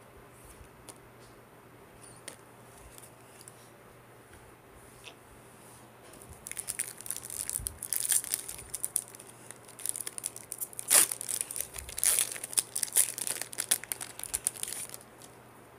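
Foil wrapper of a Topps baseball card pack crinkling loudly as it is torn open and the cards are pulled out, starting about six seconds in and stopping just before the end, after a few faint clicks of cards being handled.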